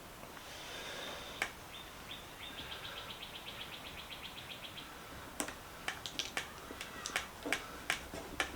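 A faint rapid chirping trill, about ten chirps a second, followed by a run of sharp clicks and light knocks as the restored socket set and its metal box are handled.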